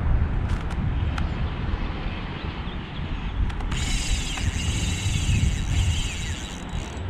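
Wind buffeting the microphone, with a few light clicks, then a spinning reel being cranked to retrieve the lure, a fine whirring that starts about halfway in and stops shortly before the end.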